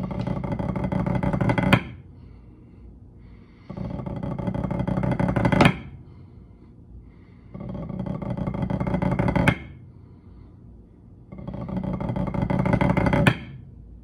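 Drumsticks playing buzz (press) rolls on a rubber practice pad: four long 25-stroke rolls of about two seconds each, about two seconds apart. Each rises a little in level and ends in a sharp final tap. They form a pipe-band roll-off, played as triplets.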